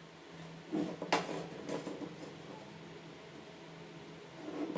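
Steel rulers clinking and knocking against each other and the wooden workbench as they are handled and laid down: a few sharp clicks in the first two seconds and a softer knock near the end.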